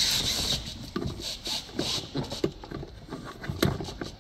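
Light plastic clicks and taps from a Hyundai i30's glove box being handled and fitted back into the dashboard, coming irregularly.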